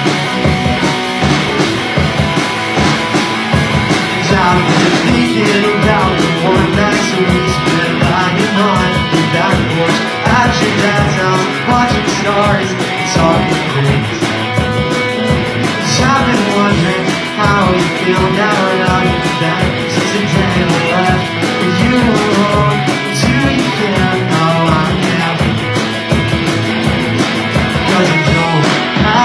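Rock band playing a loud, driving song with guitar, bass and drums.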